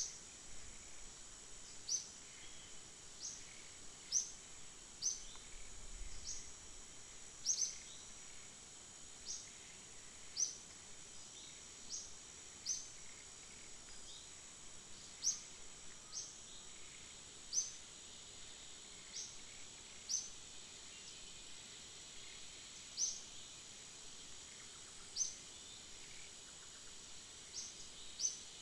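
Outdoor ambience: a steady high insect buzz, with short, high chirps repeating irregularly every second or two.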